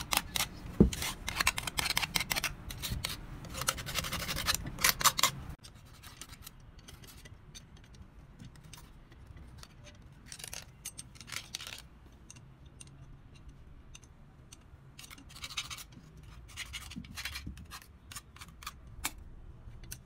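Hand tools rasping and scraping on a metal part in quick, dense strokes for about five seconds. Then it drops much quieter to scattered metallic clicks and short scrapes as a ring spanner works the bolts of a cast housing.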